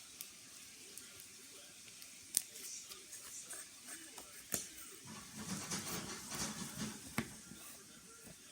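Slime being squished and pressed by hand: three sharp pops spread through, with a run of soft crackling squelches a bit past the middle.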